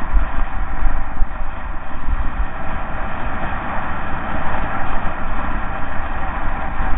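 Mountain bike rolling fast downhill over loose gravel, its tyres crunching in a steady noise, with heavy wind buffeting on the microphone.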